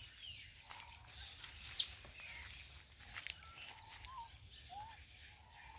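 Short high-pitched animal calls: one loud falling squeal a little under two seconds in, and a few softer chirps later, with a click or two.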